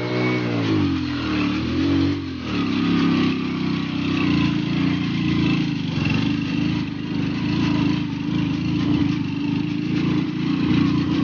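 Motorcycle engine rising and falling in pitch twice in the first two seconds, then running steadily under load as the bike climbs a steep, rocky dirt track.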